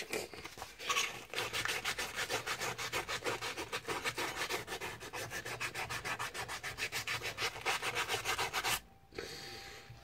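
Hand sanding of a steel knife blade made from a bike tool: quick, even back-and-forth scraping strokes, several a second, that stop about nine seconds in. The blade is being brought to a matte finish.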